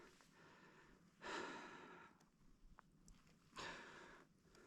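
A man breathing hard: two heavy exhales about two and a half seconds apart. He is out of breath and his heart is racing after fighting and netting a heavy fish.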